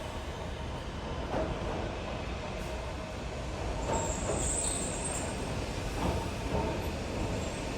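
A narrow-gauge 260-series electric train with nose-suspended drive running along the track, heard from inside the train. Wheels knock several times over rail joints, with a brief high squeal about four seconds in.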